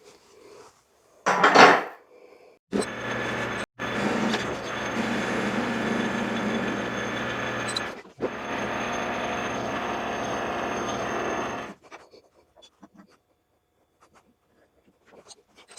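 Metal-working machine tool running steadily with a constant motor hum while cutting metal, stopping a few seconds before the end, then a few light clicks. Just before it, about a second and a half in, comes a short loud scraping burst.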